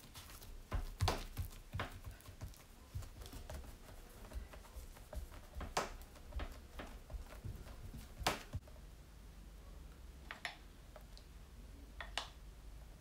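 Soft taps, pats and scattered clicks of hands pressing and stretching a thin sheet of dough on a silicone pastry mat, with a few sharper clicks about one, two, six and eight seconds in.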